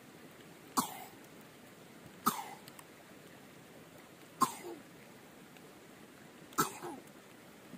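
A woman coughing four times, one short cough about every two seconds.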